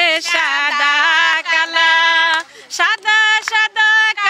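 A woman's voice singing unaccompanied into a microphone, holding long steady notes with short breaks between phrases.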